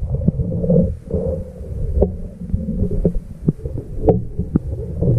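Muffled underwater audio from a GoPro in its waterproof housing, moving down a stone-lined well on a rope: a steady low rumble with irregular knocks and clicks.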